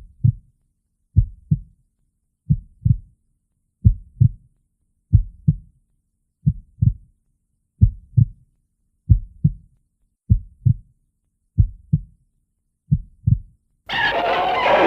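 Slow heartbeat sound effect: eleven low lub-dub double thumps about 1.3 seconds apart. In the last second a loud, harsh noise cuts in.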